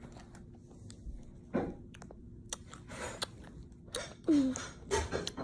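A child chewing Skittles candy, with small wet clicks and smacks of the mouth, and a short sound of her voice about four seconds in.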